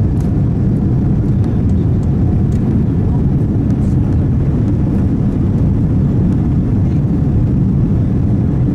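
Cabin noise of a Boeing 787-9 taxiing: a steady low rumble from its engines at low thrust and the aircraft rolling on the ground.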